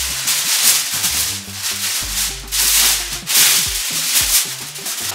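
Aluminium foil crinkling and rustling as a sheet is pulled off the roll and shaken open, in several loud surges, loudest about halfway through.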